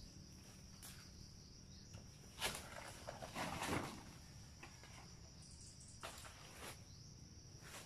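Footsteps and rustling of dry leaves and plants come in short bursts, loudest a third to halfway through, as a person moves and works among banana plants. A steady high insect buzz runs underneath.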